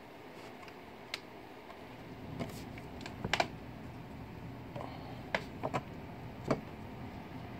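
Handling noise: scattered light clicks and taps, about ten in all, some in quick pairs, over a faint low hum.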